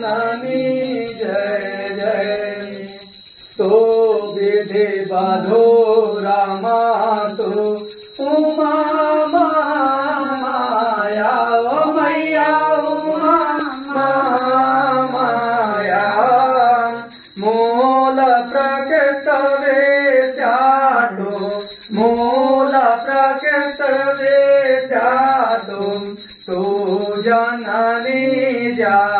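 A man singing a Hindu aarti hymn in one continuous melodic line, with a steady high ringing behind the voice that drops out for a moment partway through.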